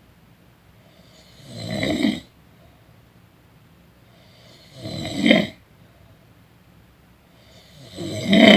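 A person snoring in sleep: three snores about three seconds apart, each growing louder and then cutting off abruptly.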